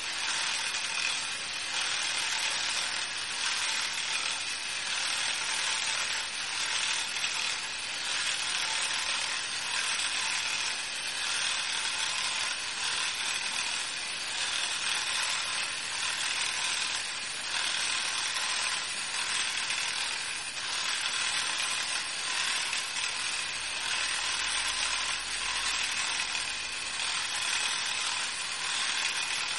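Small battery-driven electric motor whirring steadily through a train of 3D-printed plastic gears as the walking robot's crank legs turn. The whirr pulses faintly and regularly with the robot's stepping.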